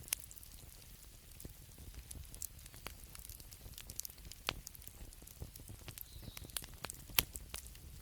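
Wood fire crackling, with irregular sharp pops, the loudest about seven seconds in, over a low steady rumble.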